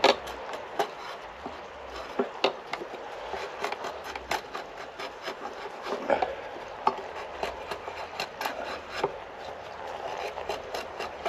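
Chestnut wood being shaved with a blade on a shave horse: a run of short, irregular scraping strokes with sharp knocks of wood now and then.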